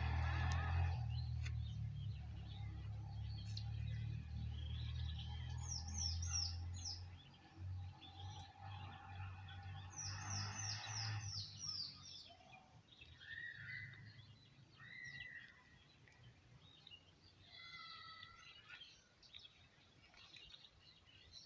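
Wild birds calling: two quick runs of five or six descending chirps, then a few lower arched calls. A low steady rumble runs beneath and fades out about halfway through.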